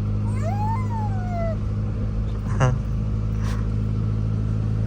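Steady low drone inside the cab of a Chevrolet S10 pickup on the move. Near the start a brief high call rises and then slides down over about a second.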